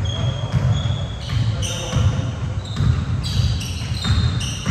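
Basketball being dribbled on a gym floor, repeated thuds a half second to a second apart, with sneakers giving short high squeaks.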